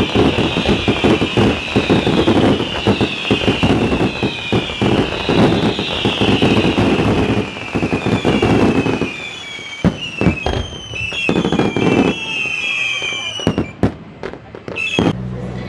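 Fireworks barrage: dense crackling and bangs with many overlapping whistles, each sliding down in pitch. About thirteen seconds in it thins out to a few separate sharp reports.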